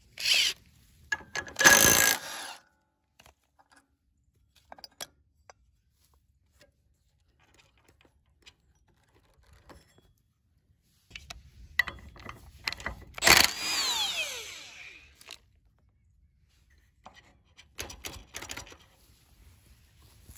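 Metal tool and parts noise as the driven pulley of a go-kart's 30 series torque converter is taken off its jackshaft: two short loud bursts near the start, a stretch of faint scattered clicks, then a few seconds of metallic scraping and rattling with one sharp clank about two-thirds of the way through, and a few more clicks near the end.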